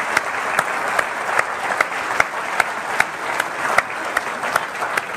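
Audience applauding: a dense, even wash of clapping with individual sharp claps standing out.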